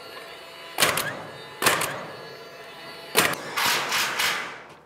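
DeWalt cordless coil nailer firing fasteners through steel ceiling panels into the framing. Sharp shots come about a second apart, and the last several follow in quick succession near the end.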